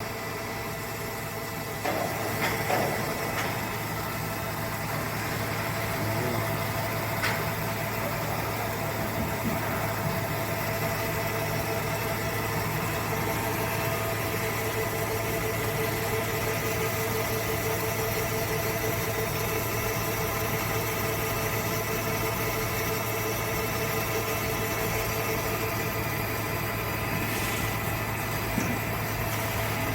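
CNC machine running while machining an electric motor housing: a steady mechanical hum with several constant whining tones over it, and a few light clicks about two to three seconds in.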